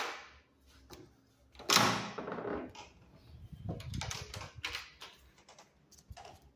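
A sharp click, then a run of irregular clicks, taps and rustles: hands working at a hotel room door and handling the camera phone.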